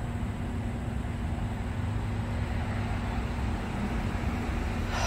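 Steady road traffic noise from passing cars, with a faint steady hum under it and one short sharp sound at the very end.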